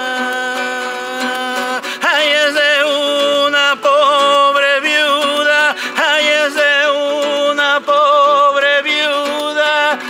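A man singing a Spanish folk song to a strummed nylon-string classical guitar. A long held note opens, then from about two seconds in the voice moves through wavering, ornamented phrases with heavy vibrato.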